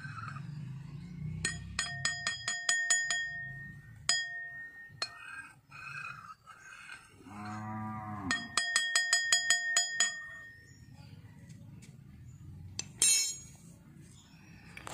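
A small bell rung rapidly in two runs of about two seconds each, with a cow mooing once between them. A short clatter comes near the end.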